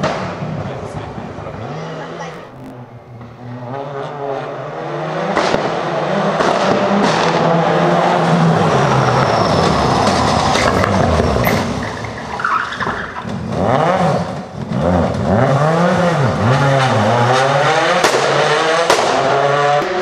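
Rally cars at full throttle passing one after another, engines revving up and falling back through gear changes, with sharp exhaust bangs.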